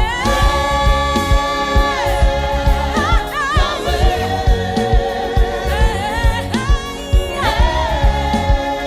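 Gospel song: held, wavering sung vocals, with a choir joining, over a steady drum beat.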